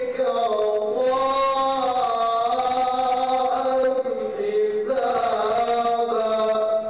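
A man's solo Quran recitation in the melodic mujawwad style, held ornamented notes that waver in pitch, with a short break about four seconds in. The voice stops near the end.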